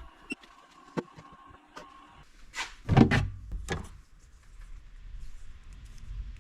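Small objects being handled: a few sharp clicks, then a burst of louder knocks and scrapes about three seconds in, followed by a faint low hum.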